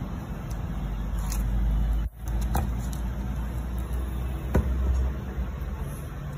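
A steady low rumble with a few light clicks, about two and a half and four and a half seconds in, as a laptop display panel assembly is handled on a tabletop.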